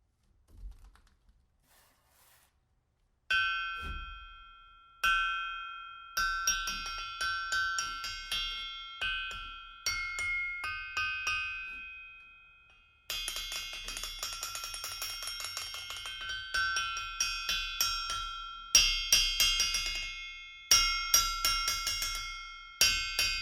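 Hammer blows on the face of a 572 lb North German double-horn anvil, each leaving a clear high ring that fades slowly. Two single blows come about three and five seconds in, then runs of rapid light strikes follow. The long, clear ring shows the anvil's excellent ring and rebound.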